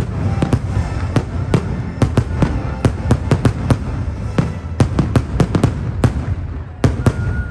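Aerial fireworks shells bursting in a rapid barrage: sharp bangs about three a second over a continuous low rumble, with a last close pair near the end.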